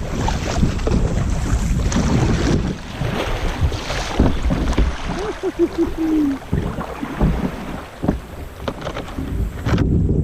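Fast, flood-swollen creek water rushing around a kayak, with wind buffeting the microphone and scattered knocks. A short pitched sound wavers and then holds about five to six seconds in.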